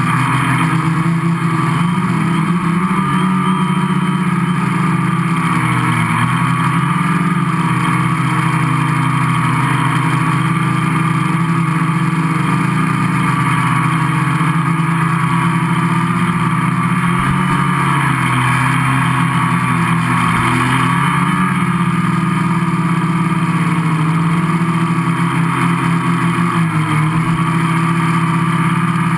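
Gaui 500X quadcopter's electric motors and propellers, heard from on board, running with a steady buzzing whine. The pitch dips and recovers briefly a few times as the throttle changes.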